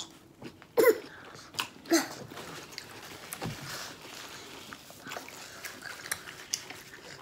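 Close-miked chewing and wet lip-smacking, with scattered soft clicks, from mouthfuls of corned beef sandwich and pickle. A couple of short voice sounds come in the first two seconds.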